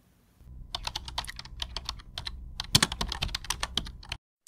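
A rapid, irregular run of sharp clicks, several a second, over a low rumble; the loudest click comes near three seconds, and it all stops abruptly just after four seconds.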